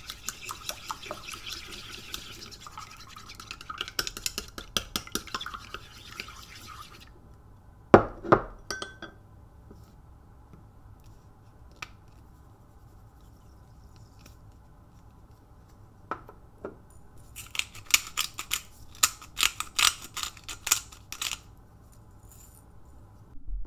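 Wooden chopsticks beating eggs in a ceramic bowl, a quick run of clicks and scraping for about seven seconds. Then a sharp knock as the chopsticks are laid on the bowl, the loudest sound. Near the end a pepper grinder is twisted, a run of dry crackling clicks.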